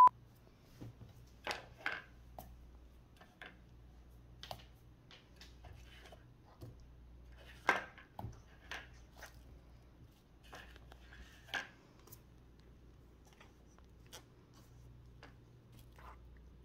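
Scattered light clicks and taps from painting pumpkins: paintbrushes knocking against a plastic palette and the pumpkin, with one sharper tap about halfway through, over a faint low hum.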